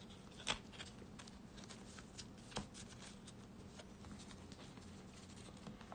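Faint flicks and slides of Yu-Gi-Oh trading cards being handled and laid down on a table, a scatter of small card clicks with a sharper one about half a second in and another around two and a half seconds.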